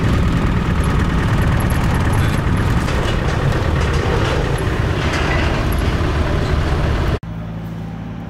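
Land Rover Defender driving, heard from inside the cab: a steady engine drone with road rumble. About seven seconds in it cuts off suddenly to a quieter, steady low hum.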